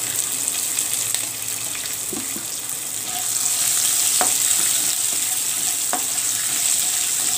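Oil sizzling in a non-stick pan as a tempering of chana dal, mustard seeds, cumin and green and dried red chillies fries, stirred with a spatula that ticks against the pan a few times. The sizzle grows louder about three seconds in.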